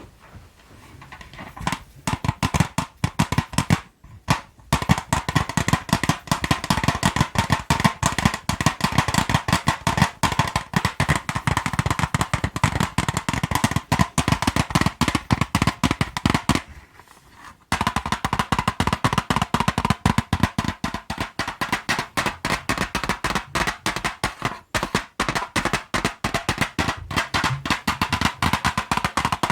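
Colored pencils tapped in quick, continuous runs of sharp clicks, many a second, with a brief pause about four seconds in and a second-long pause around seventeen seconds in.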